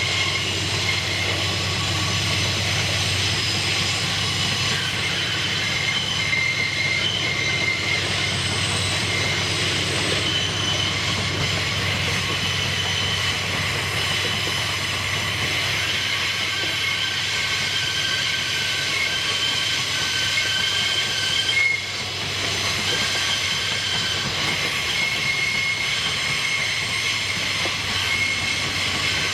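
Railway wagons rolling past, with a steady low rumble and high-pitched wheel squeal that comes and goes throughout.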